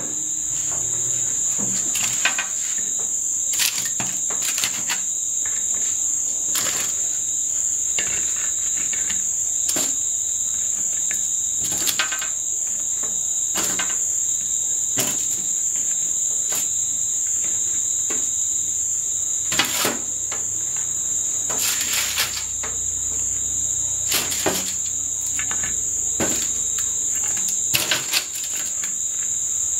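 Steady high-pitched insect chorus, chirring without a break, with scattered short clicks and knocks on top.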